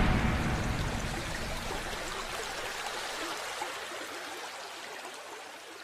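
Rushing, water-like sound effect in an intro animation, the tail of a loud whoosh, fading slowly away.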